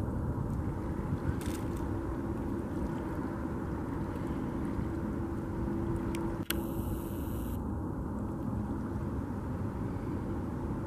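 Steady low outdoor rumble with a faint steady hum, with a short burst of high hiss about six and a half seconds in.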